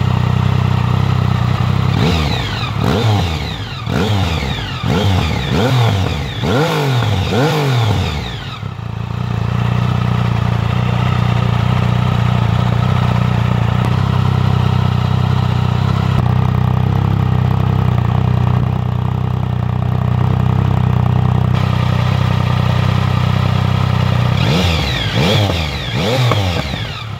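Triumph Speed Triple 1050's inline three-cylinder engine through an Arrow aftermarket exhaust. It is revved in a string of quick throttle blips, each rising and falling in pitch, then runs steadily for a long stretch before more quick blips near the end.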